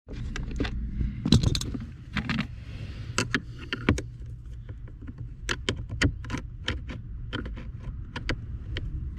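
Hand tools clicking and clinking irregularly against metal and plastic as screws are worked out of the blower motor housing, over a steady low rumble.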